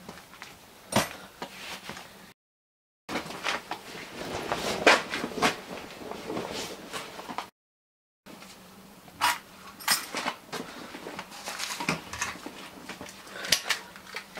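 Scattered clicks, knocks and clatter of objects being handled, in three stretches split by two short gaps of dead silence.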